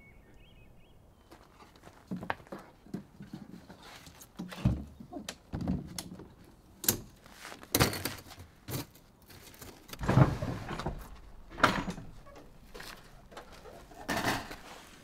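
Folding camp table being set up and a two-burner camp stove set down on it: a run of separate knocks, thunks and clatters, loudest around ten and twelve seconds in.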